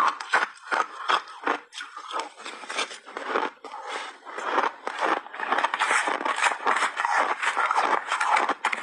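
Mouthful of shaved ice crunching in quick, crackly bites, then a metal spoon scraping through the shaved ice in the bowl, dense and continuous, in the last few seconds.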